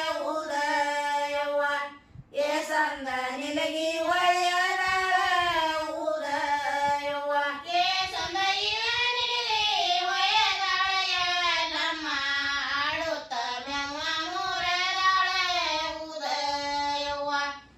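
Women's voices singing a Kannada folk song together in unison, in a sustained, gliding melody. The singing breaks for short breath pauses about two seconds in and near the end.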